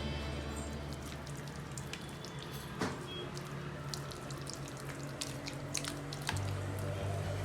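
Small wet squishing clicks and drips of hands rubbing a thick masala paste into a raw fish, over faint background music.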